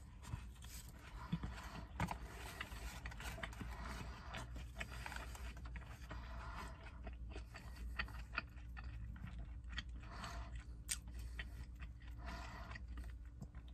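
A person biting into and chewing a mouthful of gyro close to the microphone: small irregular wet mouth clicks and smacks over a low steady hum in a car's cabin.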